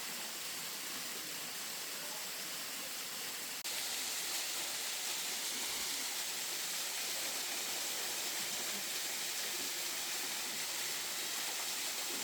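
Steady rushing of a waterfall pouring into a pool, an even hiss that gets a little louder with a sudden step about three and a half seconds in.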